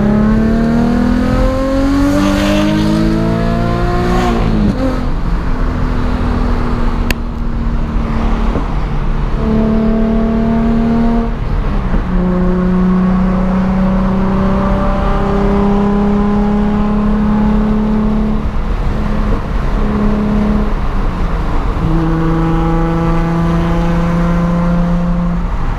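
Car engine heard from inside the cabin, its pitch rising as it accelerates through a gear, dropping suddenly at an upshift about four seconds in, then running at a fairly steady drone while cruising, with small rises and falls in pitch. A single brief click partway through.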